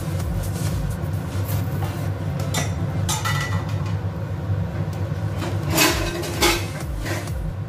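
Kitchenware clinking and knocking a handful of times, the two loudest knocks in the second half, over a steady low hum.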